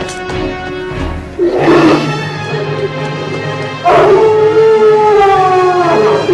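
A werewolf howling over dark background music: a short cry about a second and a half in, then one long howl from about four seconds in, falling slightly in pitch.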